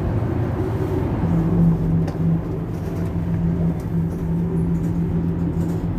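Mercedes-Benz Citaro C2 hybrid city bus idling at a stop with a steady low rumble; a steady low hum joins in about a second in and holds.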